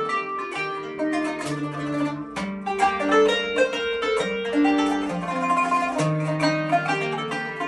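Instrumental music: a kanun, the Turkish plucked zither, plays a quick melody of plucked notes over held bass notes.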